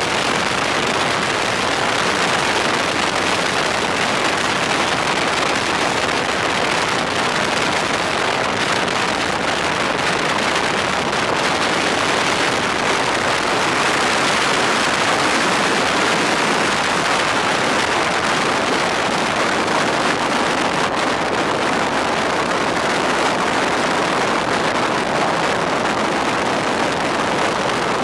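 Steady rush of wind past a motorcycle at cruising speed, with engine and road noise blended in and no clear engine note standing out.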